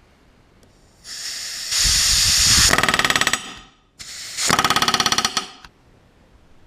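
Pneumatic rivet gun with a spring-loaded back-rivet set, back riveting flush rivets through a stiffener into an RV-7 elevator skin. Two bursts: the first starts about a second in as a hiss of air that builds into rapid hammering, and the second, shorter burst hammers for about a second.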